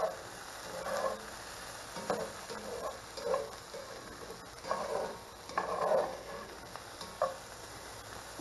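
Mixed vegetables sizzling in a cast iron skillet as a metal utensil stirs them, with a series of irregular scraping strokes against the pan.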